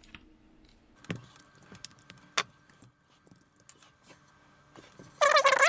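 Side cutters snipping through the plastic back casing of a GoPro Hero 6: scattered sharp clicks, the loudest about two and a half seconds in. Near the end comes a loud squeaky creak of the plastic shell being worked apart.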